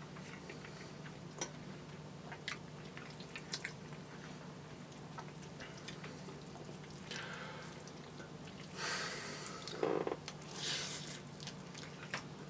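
A person eating noodles close to the microphone: wet chewing and small clicks of a fork, then louder slurping about seven, nine and eleven seconds in.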